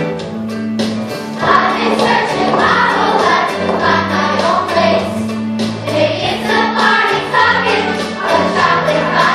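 Youth choir singing in parts, with steady low held notes underneath; the singing grows fuller and louder about a second and a half in.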